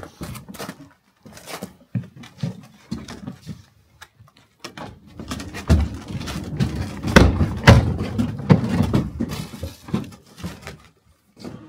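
Knocks, bumps and rustling of gear being handled and shifted about. They come as scattered single knocks at first, then a busier, louder run of thumps and scraping from about five to ten seconds in.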